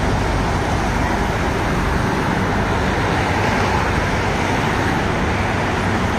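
Steady rush of road traffic passing close by, with no horn sounding.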